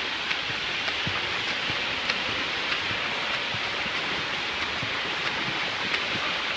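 Splashing of a swimmer doing front crawl: a steady rush of churned water with small sharp splashes recurring about every half second or so from the arm strokes and kicks.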